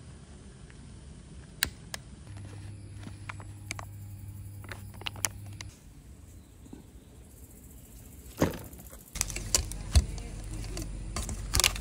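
Several sharp clicks and knocks over a low steady hum, the hum growing stronger about nine seconds in, with a louder cluster of knocks near the end.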